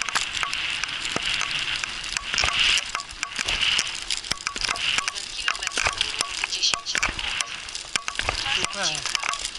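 Wheels of a dog-drawn rig rolling fast over a sandy, gravelly track: a steady gritty hiss with frequent sharp rattles and clicks from the rig.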